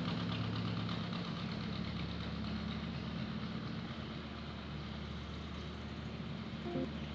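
Electricity generators running with a steady low engine hum.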